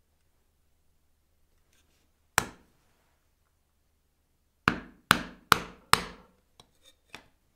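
Bench chisel being struck on its handle as it chops straight down at a shoulder line in a wooden workpiece: one sharp knock, then four evenly spaced blows about two and a half a second apart, followed by three lighter taps near the end.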